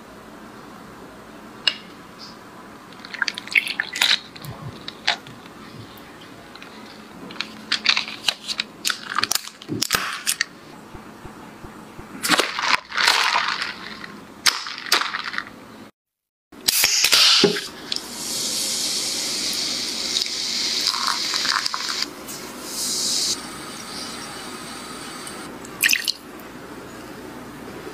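Kitchen food-prep sounds: a spoon clinking and scraping against ice cubes in a plastic cup, heard as a string of sharp clicks. After a short gap, a steady hiss runs for several seconds, and near the end water is poured into a glass bowl.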